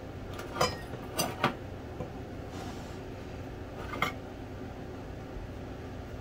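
A spoon and glass dishes clinking: four sharp clinks, two of them in quick succession about a second in and another about four seconds in, over a steady low hum.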